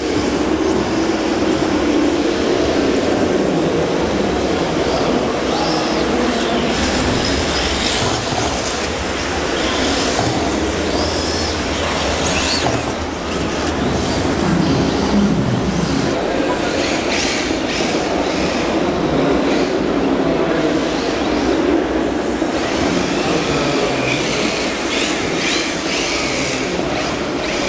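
Steady din of a busy exhibition hall, with a few brief high whines that rise and fall, fitting electric RC drift car motors on the indoor track.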